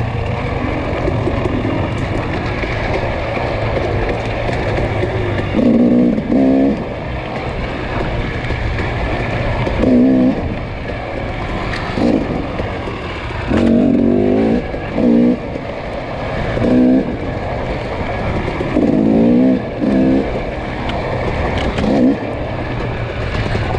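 Off-road dirt bike engine revving in about a dozen short bursts as the rider opens and closes the throttle, over steady wind and riding noise.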